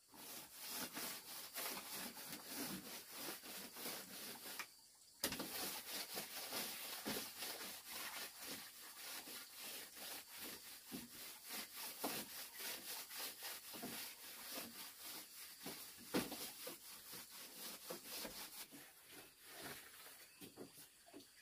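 Quick, even back-and-forth rubbing strokes on bamboo, broken once by a short pause that ends in a sharp click about five seconds in.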